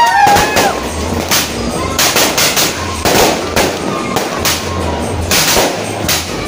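Aerial fireworks going off: an irregular string of sharp bangs and crackles, about two a second. In the first second, whistling shells glide up and then down in pitch.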